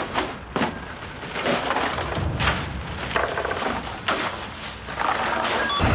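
Ice cubes and plastic bags handled in a hurry: a string of irregular crunches, knocks and crinkles as ice is packed by hand.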